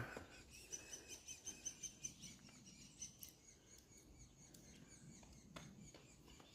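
Faint, high bird chirps in a quick even series, about four a second, that stop around the middle.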